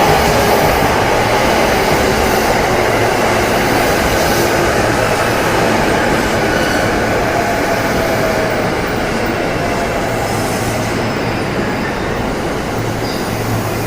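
Electric commuter train running alongside a station platform, a dense rumble of wheels and motors that slowly fades, with a faint falling whine in the middle and light wheel squeal.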